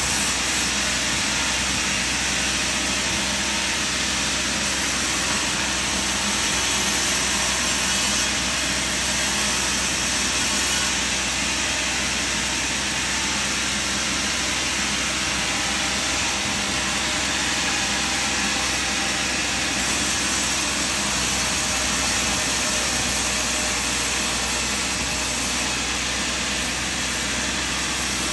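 Sawmill machinery running steadily with an even, unbroken mechanical noise, with no distinct cuts, knocks or pauses.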